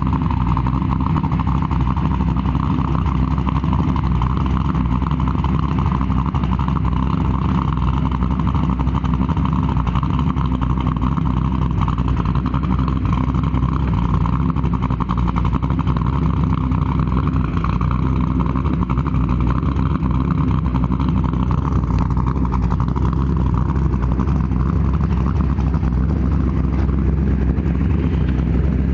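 1969 Camaro's 509 cubic-inch big-block V8, fed by dual Holley Dominator carburetors, running at a steady idle, slightly louder near the end.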